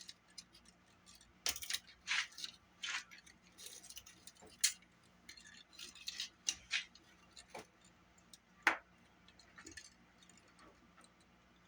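Irregular small clicks and taps of a Sony Walkman cassette player's plastic casing and small parts being handled during disassembly, with two sharper clicks about five and nine seconds in.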